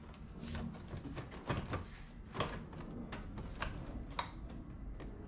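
Mazda RX-7 door card being pulled off the door, its plastic retaining clips coming loose in a string of irregular sharp clicks.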